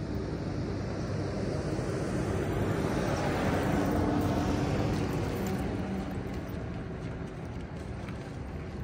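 A pickup truck driving past: tyre and engine noise swells to a peak about four seconds in, then fades as it moves away, its engine note sounding lower after it passes.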